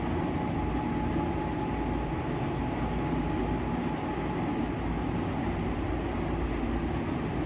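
Steady low machine rumble with a faint even hum, unchanging throughout.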